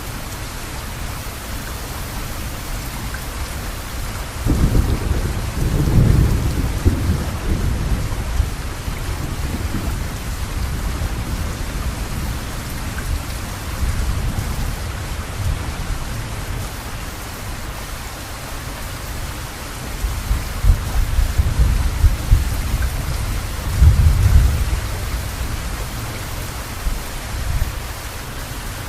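Steady rain with thunder rumbling twice: a long low roll about four seconds in, and another around twenty seconds in.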